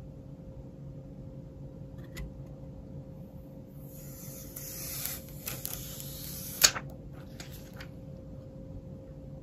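Thin plastic film being handled and peeled by hand: a crinkly rustle for about three seconds from roughly four seconds in, ending in one sharp click, with a few small ticks after it.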